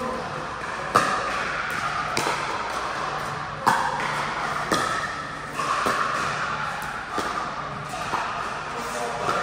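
Pickleball rally: paddles strike the hard plastic ball in a series of sharp pocks, roughly one a second, in a large indoor hall.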